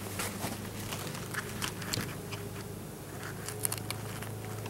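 Steady low hum of a colony of Russian-Carniolan honey bees buzzing around a newly installed hive, with scattered sharp clicks and rustles of handling and footsteps over it.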